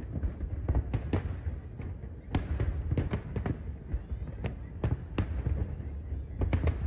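Fireworks shells bursting in an irregular run of many sharp bangs and crackles over a continuous low rumble.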